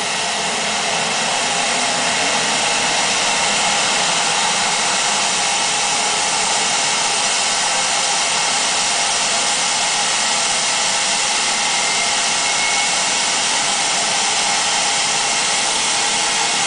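Twin turbine engines and rotor of a BK 117 helicopter running at a steady pitch, a loud even rushing whine with no change in power.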